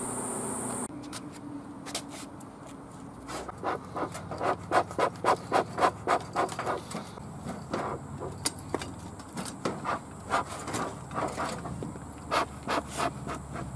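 Bee smoker's bellows pumped in quick puffs of air, about three a second, in several runs with pauses, fanning freshly lit dry-grass fuel, over a low steady hum. For about the first second, honeybees buzz at a hive entrance.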